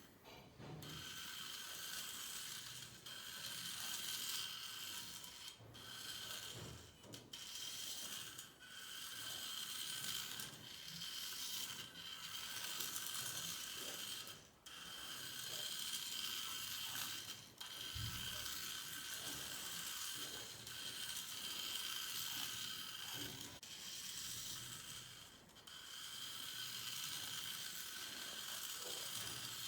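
Tiny electric motor and plastic gearbox of a micro RC car whirring with a high whine, running in spurts of a few seconds that stop and start again about ten times as it is driven.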